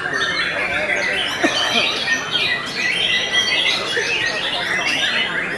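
Many caged white-rumped shamas (murai batu) singing at once: a dense, unbroken chorus of overlapping whistles and trills.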